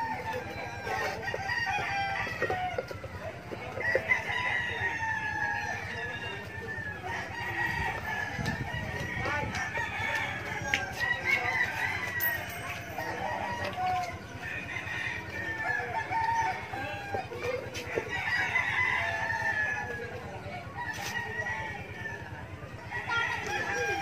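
Chickens clucking and calling throughout, with occasional light clicks as metal motor parts are handled.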